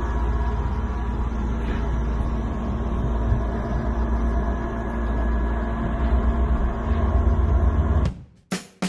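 Steady low rumble with a hiss over it, like a running vehicle, that cuts off suddenly near the end and gives way to a sharp drum hit.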